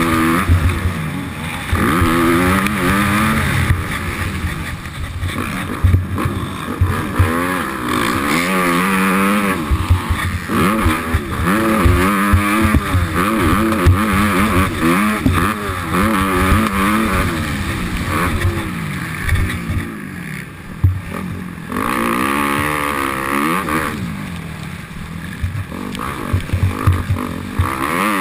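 Motocross bike engine heard from on board, revving up and falling back again and again as it accelerates, shifts and shuts off around the track, with frequent low thumps. The engine drops off briefly about twenty seconds in, then picks up again.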